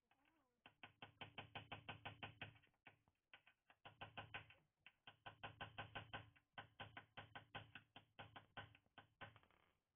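Ratchet wrench clicking in quick runs of about eight clicks a second, four runs with short pauses between, while a bolt on the chassis frame is turned.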